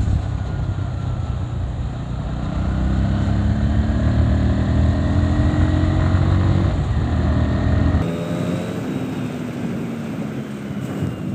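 Motorcycle engine running while riding, heard with heavy wind rumble on the microphone, its note rising gently as it gathers speed. About eight seconds in the deep rumble cuts off abruptly and a quieter engine sound carries on.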